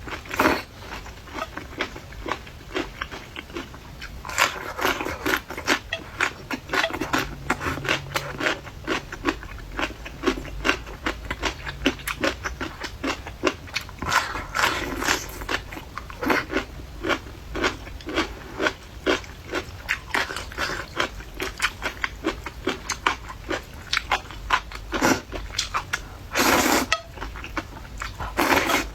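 Close-miked chewing and biting of crunchy food: a steady run of sharp crunches, with a few denser, louder bursts of biting.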